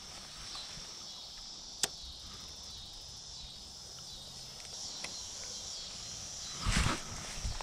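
Steady chorus of insects buzzing high-pitched. A single sharp click about two seconds in and a brief, louder noise near the end.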